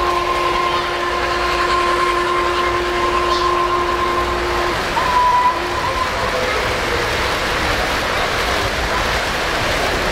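Freight cars of a 3-rail O-scale model train rolling steadily past on the track. A steady tone is held through the first half and stops abruptly, then a short tone blast follows about a second later.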